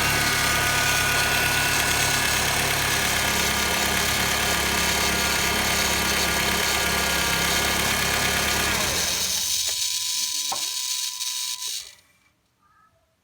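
2006 Honda Civic EX's 1.8-litre four-cylinder idling with a high grinding noise over it. About nine seconds in the engine shuts off, and the grinding runs on for about three seconds before it stops. The owner does not know the cause.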